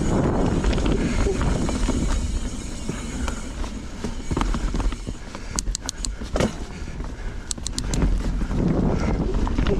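Knolly mountain bike ridden over dirt singletrack: a steady rumble of tyres and frame, with rattles and two short clusters of quick sharp clicks around the middle.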